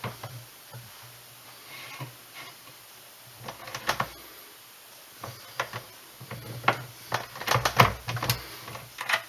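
Progressive reloading press worked by hand: scattered sharp metallic clicks and clunks, a couple around midway and a quick cluster near the end, as a loaded round is pushed through the factory crimp die to close the case-mouth flare.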